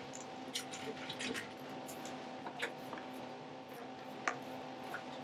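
Faint, scattered light clicks and rustles as a random orbital sander is handled on a workbench, over a low steady hum.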